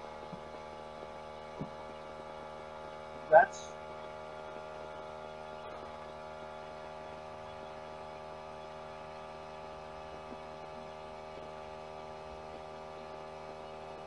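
Steady electrical mains hum, with a single short, sharp sound about three and a half seconds in.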